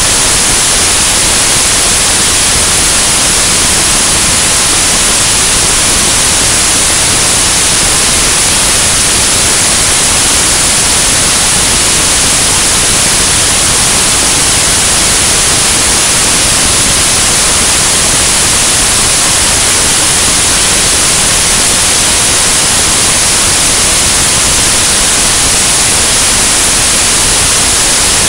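Steady, loud rushing hiss of airflow over a camera mounted outside a high-wing light aircraft in cruise flight, with no distinct engine or propeller tone standing out.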